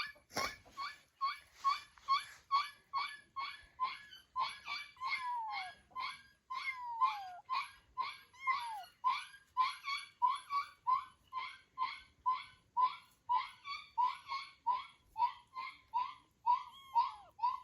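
Kittens mewing: a continuous run of short, high-pitched calls, about two to three a second, a few of them longer and sliding down in pitch.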